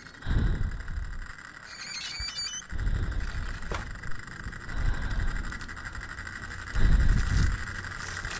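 Soundtrack of an animated horror short: low rumbling swells every two seconds or so, the loudest near the end, with a brief cluster of high squeals about two seconds in.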